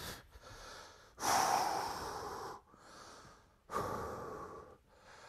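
A person breathing hard from exertion mid-set: two long, loud breaths about a second in and near four seconds in, with softer breaths between.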